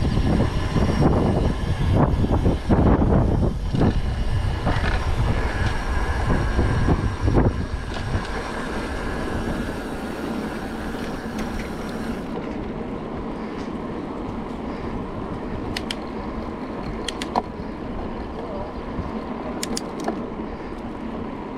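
Freeway traffic on I-205 heard from a bicycle beside the road, loud. Heavy low rumble with irregular buffeting for the first eight seconds or so, then it settles to a quieter, steady hiss.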